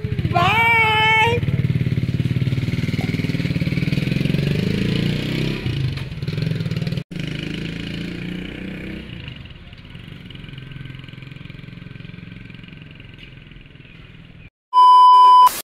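A motor vehicle's engine running, rising in pitch about four to six seconds in as it pulls away, then fading to a low rumble. A loud, steady beep sounds near the end.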